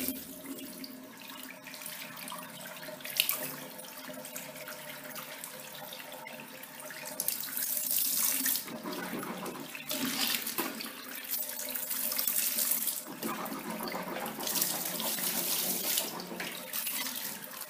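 Water running and splashing, uneven in strength, growing louder about seven seconds in.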